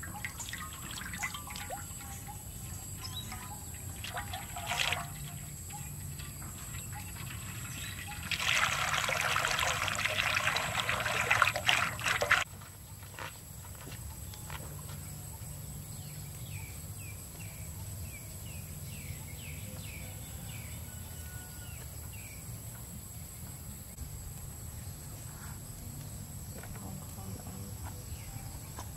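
Cooking oil poured into a large wok, followed by a loud hiss of about four seconds that cuts off abruptly. Quieter outdoor ambience follows, with a short run of chirps.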